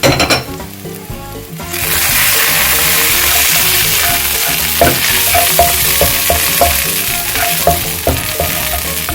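Garlic sizzling in hot cooking oil in a frying pan, the sizzle starting suddenly about two seconds in as it is sautéed. A utensil clinks against the pan near the start and knocks and scrapes repeatedly as the garlic is stirred.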